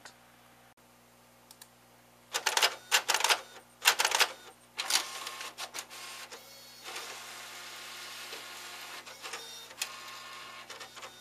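Lexmark Z22/Z32 colour inkjet printer printing a page. About two seconds in comes a quick series of loud mechanical bursts. From about five seconds on there is a steady whirring with occasional ticks while the sheet feeds out.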